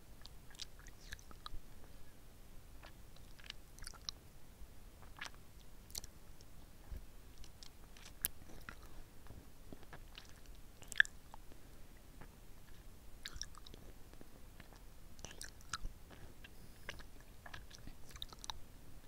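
Close-miked wet mouth sounds of licking and sucking a hard lollipop: irregular soft smacks and clicks of lips and tongue on the candy, with one sharper click about eleven seconds in.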